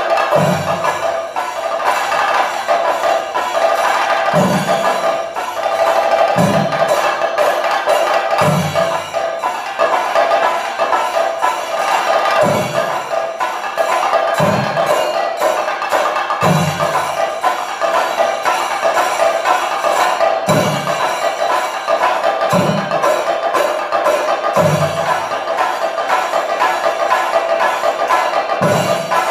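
Thayampaka on Kerala chenda drums: fast, dense stick strokes on the drumheads, with elathalam hand cymbals ringing. A deep bass drum stroke lands about every two seconds.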